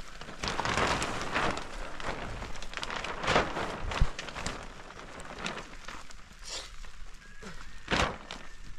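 Thin plastic sheeting crackling and rustling as it is pulled and tucked by hand, in several swells, with a dull thud about four seconds in.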